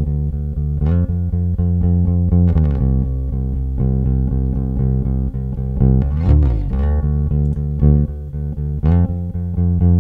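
Recorded electric bass guitar line playing back, a run of plucked, sustained low notes played with a deliberately wide dynamic range. About six seconds in, a note slides down in pitch and back up.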